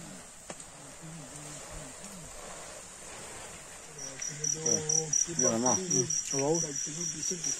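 A steady, fairly quiet hiss of ants frying in an iron wok. About four seconds in, a cricket starts chirping in an even, fast pulse, about four chirps a second, with people's voices over it.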